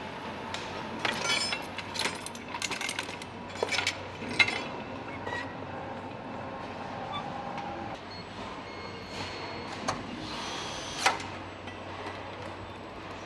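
Metal tools and parts clanking and clicking against an engine and gearbox on an assembly fixture, with a quick run of sharp knocks in the first few seconds and one more sharp knock near the end. A cordless power driver whirs briefly in the second half, over a steady factory hum.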